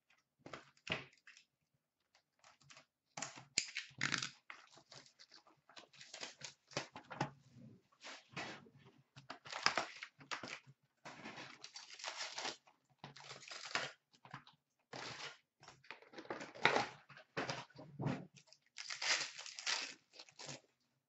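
Trading-card pack wrappers being torn open and crinkled by hand, with cards shuffled, in a run of short, irregular rips and rustles.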